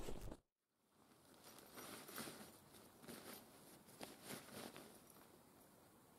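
Faint rustling and crinkling of a waterproof, non-breathable bivvy bag's fabric as a sleeping bag is pushed into it, in a few short bouts.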